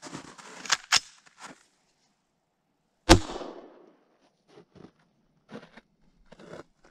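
A single sharp shot from an AR-15 fitted with a Can Cannon launcher, firing a can downrange about three seconds in, with a short fading echo. A few clicks and crunches of handling come before it.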